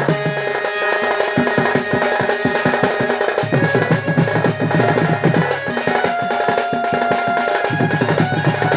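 Danda nacha folk music: fast, continuous drumming on hand drums, with held melodic tones and a low drone sounding over the beat.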